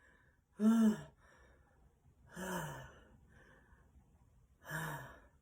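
A person sneezing three times in a row, about two seconds apart, each sneeze voiced and falling in pitch, the first the loudest.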